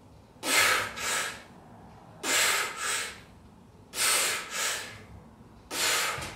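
A man's breaths during seated cable-row reps: a quick pair of breathy in-and-out breaths with each pull, four pairs evenly spaced about every second and a half to two seconds.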